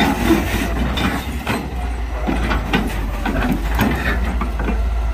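Long-reach excavator working its bucket into the earthen bank: diesel engine and hydraulics running steadily under irregular knocks and scrapes of the bucket against soil and rock.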